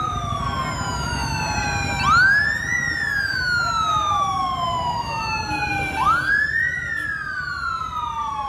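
Emergency vehicle sirens wailing. Each sweep rises quickly and then falls slowly over about three to four seconds, and two sirens overlap slightly out of step.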